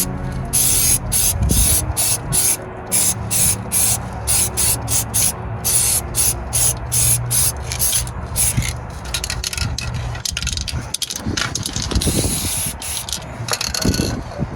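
MIG welder crackling in many short on-off bursts, about two to three a second with a few longer runs, as it welds thin rusted car body steel; a steady low hum runs underneath.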